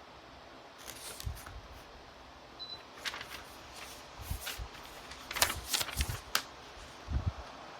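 A series of irregular clicks and rustles with a few soft thumps, like something being handled close to the microphone, over a faint steady background hiss.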